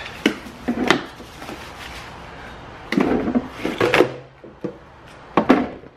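Plastic knocks and rubbing as the red molded-plastic frame of a sit-on creeper is unwrapped and handled, with a few sharp knocks and a denser clatter about three seconds in as it is tipped over.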